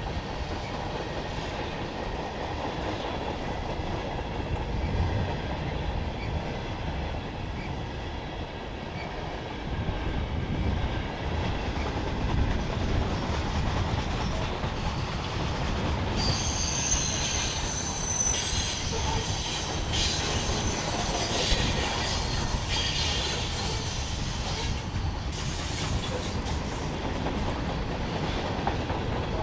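Freight train cars rolling past with a steady low rumble. About halfway through, thin high wheel squeal joins in, with scattered clicks from the wheels on the rail.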